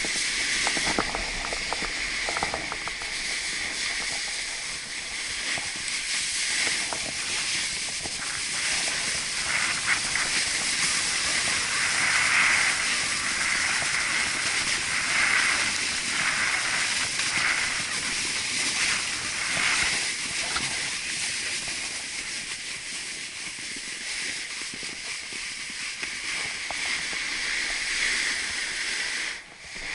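A snowboard sliding down a groomed piste: a steady hiss of the board on packed snow, swelling with each turn. It drops away sharply near the end as the board slows.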